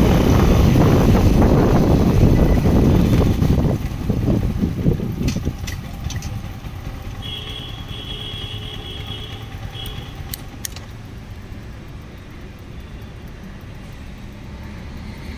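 Wind rush and engine noise of a Yamaha MT-15 motorcycle ridden at speed. The noise drops away after about four seconds as the bike slows, leaving quieter engine and road sound, with a brief high-pitched tone about halfway through.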